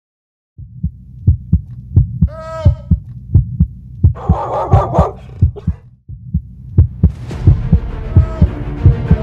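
Helicopter rotor thudding, a rapid deep beat of about three to four thumps a second. A short high cry comes about two and a half seconds in, and a burst of hiss about four seconds in.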